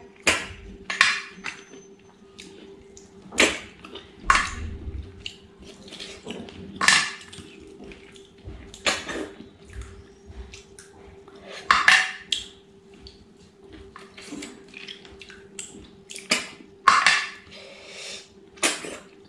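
A person sucking cooked snails out of their shells with short, wet slurps every second or few, and chewing between them. A faint steady hum runs underneath.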